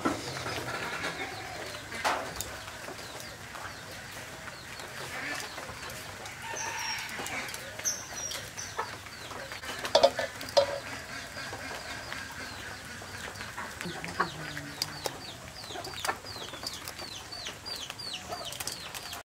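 Chickens clucking, with a long run of quick, falling high chirps in the second half and a few sharp knocks, the loudest about ten seconds in.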